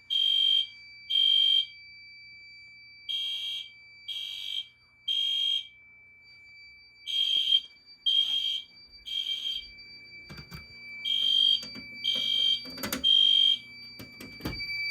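Fire alarm sounder going off in the temporal-three evacuation pattern: groups of three high beeps about a second apart, each group followed by a pause, over a steady high tone. A few knocks come near the end.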